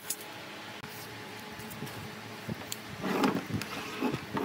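Low steady hum with scattered light knocks, and a busier stretch of knocking and rubbing about three seconds in and again near the end.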